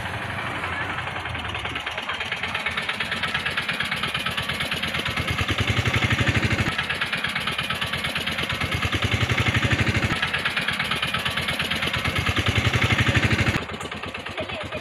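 Engine idling with a steady, rapid pulsing that swells louder in a few stretches and drops abruptly in level near the end.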